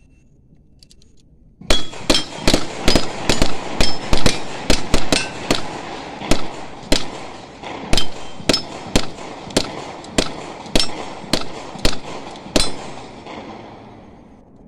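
Type 56 rifle fire (an AK-pattern 7.62×39 mm rifle): a rapid string of about two dozen single shots, two to three a second, starting about two seconds in. Each shot is followed by an echo, which dies away a second or two after the last shot.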